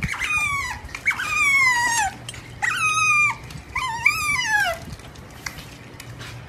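Otter giving four high, squeaky calls in the first five seconds, each sliding down in pitch, as it begs the person holding out a hand for a treat.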